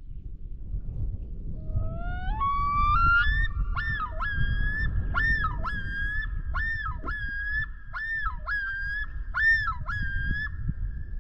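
Common loon calling its yodel: rising notes about two seconds in, then a run of about eight repeated two-part notes, roughly one a second, that go on until near the end. A low steady rumble sits underneath.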